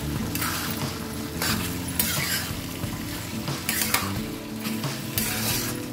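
Mutton kheema frying and sizzling in a kadai over a high flame, stirred with a steel spatula that scrapes across the pan in irregular strokes, about one a second. This is the dry-fry stage: the water has cooked off and the oil has come out of the mince.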